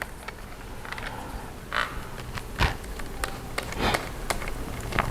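Light plastic clicks and taps from handling a laptop's internal battery as it is being removed. There are two short scraping sounds, about two and four seconds in, and a sharper knock in between.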